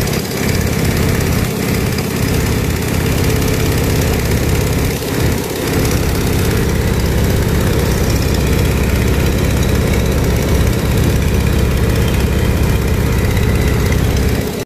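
Boeing Stearman biplane's radial engine and propeller running steadily in flight, heard from the open cockpit with a loud rush of wind over the microphone.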